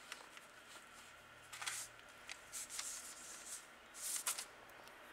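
Faint, scattered rustles of baking paper under fingers pressing strips of shortcrust dough over an egg, several short brushes and scrapes about a second apart.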